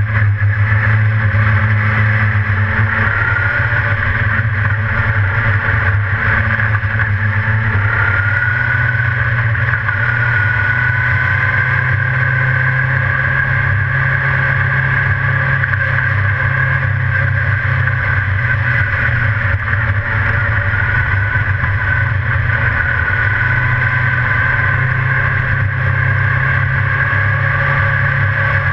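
Dirt-track race car's engine running loud and steady, heard from inside the open cockpit, its note climbing about eight seconds in and then easing and swelling slowly as the car laps the track.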